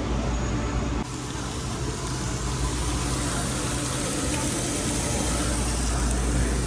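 Steady background noise at a Korean barbecue table: a constant low hum with an even hiss over it.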